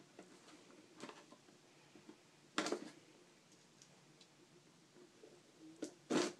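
Scissors blade slicing the packing tape along a cardboard box's seam: a few short scrapes, the loudest about two and a half seconds in and just before the end.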